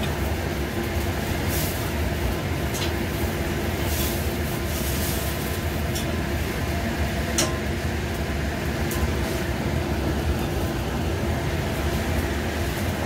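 Kitchen range hood's exhaust fans running with a steady rumble and hum, with a few scattered light clicks and taps.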